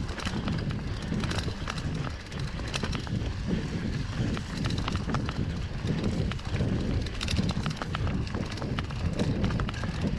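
Mountain bike rolling downhill on a dirt trail strewn with dry leaves: a constant low rumble of tyres over the ground, with frequent sharp clicks and rattles from the bike over bumps.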